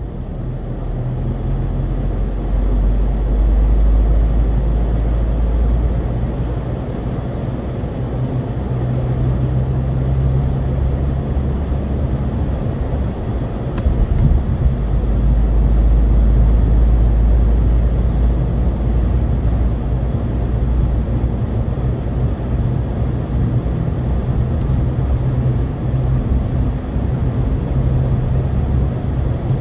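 Steady engine and tyre rumble of a car cruising on the road, heard from inside the cabin, with a deep hum that swells and eases a few times.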